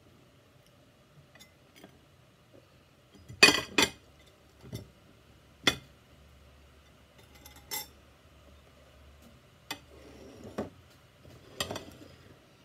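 Metal spoons, a glass bowl and ceramic plates clinking and knocking together as the dishes are gathered and stacked on a table. It comes as about eight separate clinks, the loudest a quick pair about three and a half seconds in.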